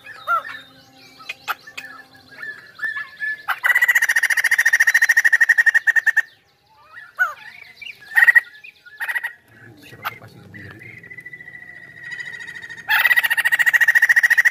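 White-crested laughingthrush calling: scattered short whistles and chirps, broken by a loud rapid rattling chatter about three and a half seconds in that lasts nearly three seconds, a long held note later on, and another loud rattling chatter near the end.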